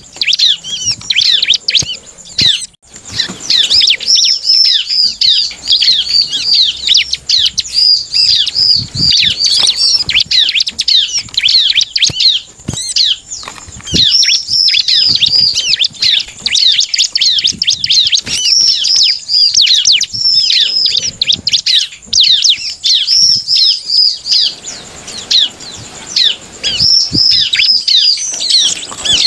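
Ciblek (bar-winged prinia) singing a fast, chattering song of high, hooked chirps in quick succession, with a few brief pauses. There are wing flutters and hops as it moves about its cage.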